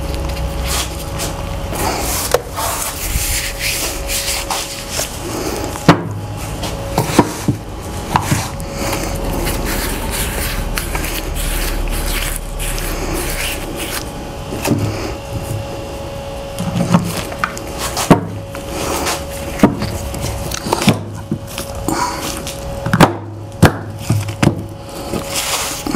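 Rubber fuel-pump parts, lubricated with Vaseline, being worked together by gloved hands: rubbing and many short clicks and knocks of small parts being handled and pressed into place, over a steady low hum.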